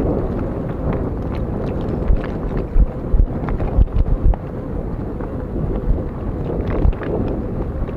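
Wind buffeting the microphone as a gusty low rumble, with scattered short clicks and rattles.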